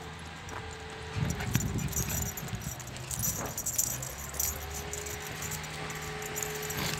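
Metal chain collar on a walking boerboel dog jingling in small irregular clinks, over a low rumble.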